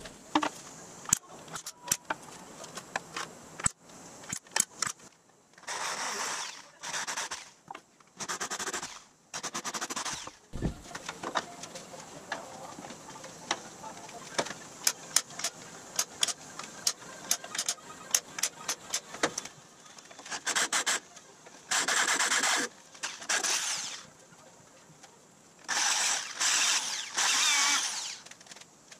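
Workshop handling of metal parts and tools, with many scattered taps, clicks and knocks. Several short runs of a corded electric drill, each about a second long, come in a cluster in the first third and again in the last quarter.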